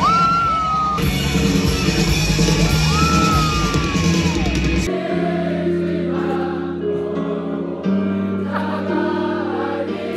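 Loud live concert music in a packed crowd, with people singing along and two long shouts, one at the start and one about three seconds in. About five seconds in it cuts abruptly to softer music with long held notes.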